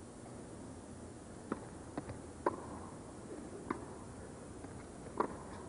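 Tennis ball struck by rackets and bouncing on court during a rally: about five sharp pocks a second or so apart, over faint arena hush.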